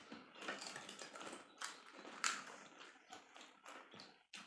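Golgappa (pani puri) being eaten fast: crisp hollow puri shells cracked open by hand and crunched and chewed, as a scatter of short crackles and mouth noises.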